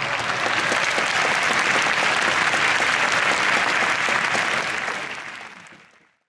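Crowd applauding, many hands clapping densely together, fading out near the end.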